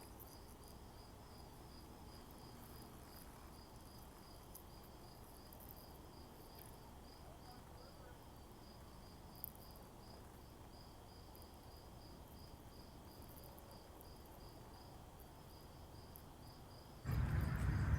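Faint insect chirping, short even chirps at about three a second, over quiet outdoor background noise. A single click comes about halfway through, and a louder low rumble starts about a second before the end.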